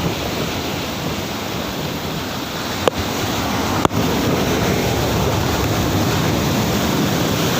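Rough sea surf breaking heavily and continuously, with wind on the microphone. Two sharp clicks near the middle, about a second apart.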